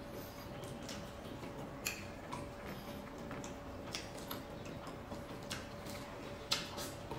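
Irregular small clicks and crackles of a cooked shrimp's shell being peeled apart by hand, over a faint steady hum.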